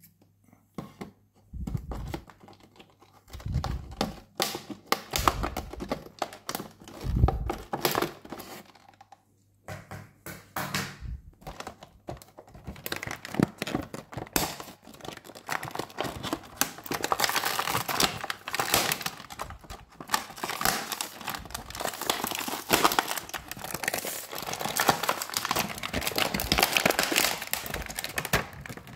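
An action-figure box being opened by hand. For the first several seconds there are scattered knocks and thumps of cardboard being handled. After a short lull comes a long run of crinkling and tearing of the packaging, busiest in the second half.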